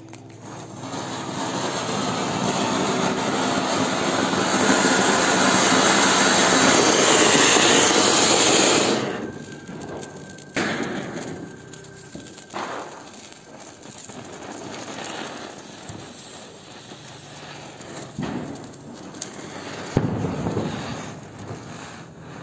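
Diwali ground fireworks spraying sparks with a steady rushing hiss that grows louder for about nine seconds and then cuts off. After that come scattered sharp pops and crackles from smaller firecrackers.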